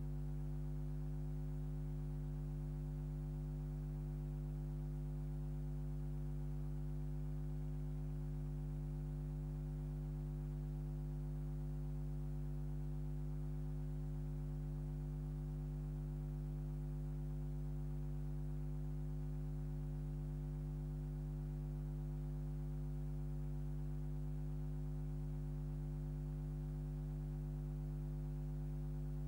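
Steady electrical mains hum: a low buzz made of several constant tones that never changes, with no other sound over it.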